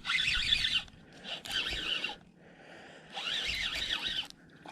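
Fishing reel whirring in three short spurts, with a squealing edge, as a hooked skipjack is fought on the line.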